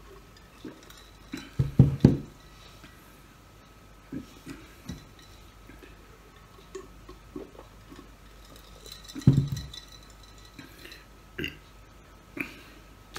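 Drinking from a large glass beer stein: loud gulps, a cluster about two seconds in and another strong one about nine seconds in, with small clinks of ice against the glass. Near the end come a couple of sharp knocks as the glass mug is set down on the table.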